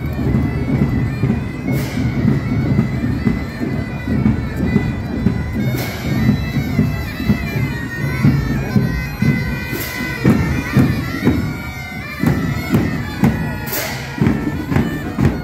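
A marching pipe band: bagpipes playing a tune over their steady drone, with drums beating and a sharp crash about every four seconds.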